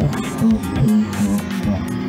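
Background music led by plucked guitar over a bass line.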